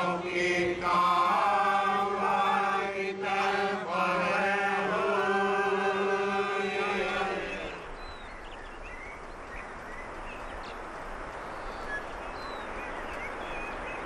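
Voices chanting together in long held notes over a steady low drone, breaking off about seven and a half seconds in. After that, a quieter steady hiss with faint high chirps.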